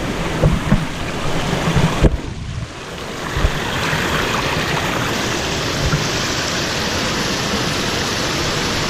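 Waterfall water rushing over rocks, a steady, even roar of falling water that fills in fully about three seconds in. A few dull thumps come in the first couple of seconds.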